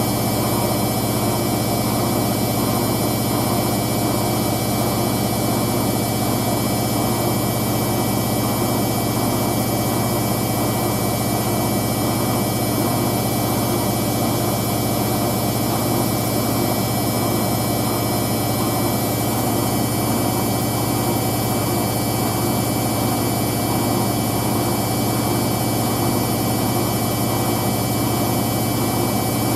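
Hoover DYN9144D3X washing machine spinning a load of towels at a steady speed of about 1000 rpm: an unchanging low drum hum with a constant high-pitched motor whine.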